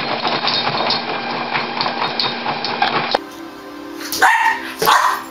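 A running treadmill with the quick patter of two boxer puppies' paws on the moving belt. After a cut, a boxer puppy barks twice in quick succession.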